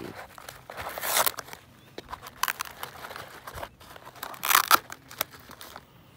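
Handling noise from a phone held in the hand: fingers and sleeve rubbing and scraping close to the microphone. It comes as a few irregular rustling bursts with scattered clicks.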